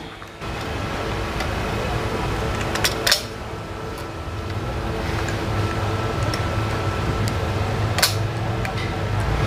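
Hand pop-rivet gun fastening a number plate to its bracket: sharp snaps of the rivet mandrels breaking, two close together about three seconds in and another about eight seconds in, over a steady mechanical hum.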